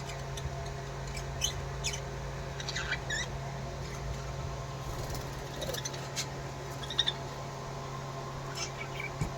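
Pet parrots giving scattered short, high chirps and squeaks over a steady low hum.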